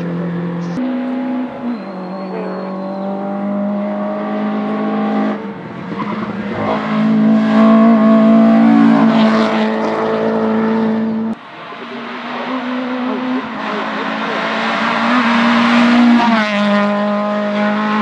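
Hill-climb competition car's engine driven hard, its pitch stepping up and down through gear changes, growing loud as the car comes close. About eleven seconds in the sound drops sharply for a moment, then builds again.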